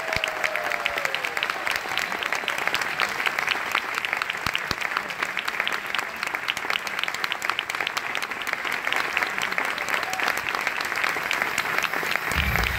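Audience applauding steadily, a dense patter of many hands clapping. Near the end, low held musical notes come in under the applause.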